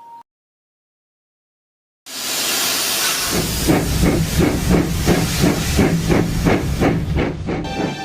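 Steam locomotive sound: a sudden loud blast of steam hiss, then steady rhythmic chuffing at about three beats a second. It starts about two seconds in, after silence, and music comes in near the end.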